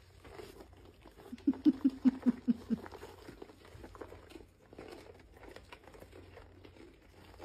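A deer eating horse treats out of a hand-held cup, with faint rustling and crunching. A quick run of about nine loud, low knocks comes between one and three seconds in.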